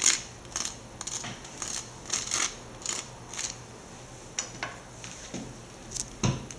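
Table knife scraping mayonnaise across dry toast in a run of short strokes, then a single dull knock near the end.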